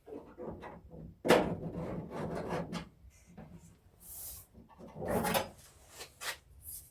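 Irregular knocks and scraping of objects being handled and moved about, with one sharp knock and a few seconds of rubbing and clatter after it.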